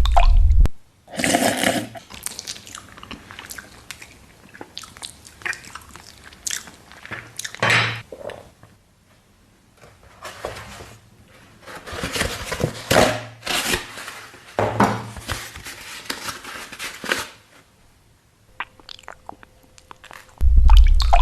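Close-miked chewing and crunching of food in irregular bursts with quieter pauses between them. A loud, deep thud comes at the very start and another one near the end.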